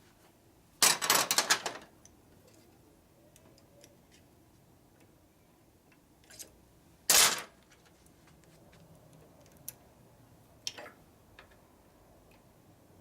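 Metal parts and hand tools being handled: a quick rattle of clicks about a second in, one loud sharp clank about seven seconds in, and a few faint scattered ticks between them.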